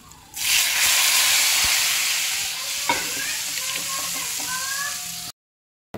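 A tadka of hot oil, cumin seeds and dried red chillies sizzling hard as it is poured into kadhi. The sizzle starts about half a second in, eases slightly, and cuts off suddenly near the end.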